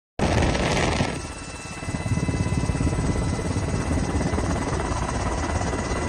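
Helicopter rotor beating rapidly, with a steady turbine whine over it. A rushing noise fills the first second before the rotor beat comes to the fore.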